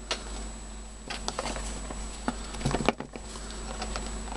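Hands handling and working open a small cardboard box: scattered taps, scrapes and clicks of fingers and cardboard, with a cluster of louder knocks about three seconds in.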